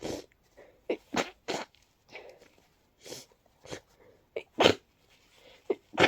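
A rapid run of congested, breathy sneezes from someone coming down with a cold, with short sharp in-breaths between them. The loudest sneeze comes about three quarters of the way through.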